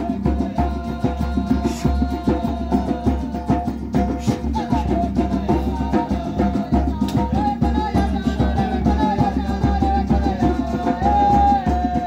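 Music with busy drum and percussion strokes under a held melody line that steps between a few notes.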